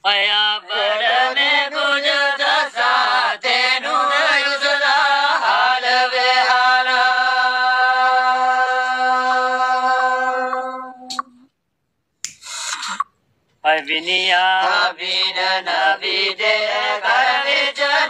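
A man singing a Gojri kalam (bait) unaccompanied, in a chanting style, with one long held note in the middle. The singing breaks off for a couple of seconds, then picks up again.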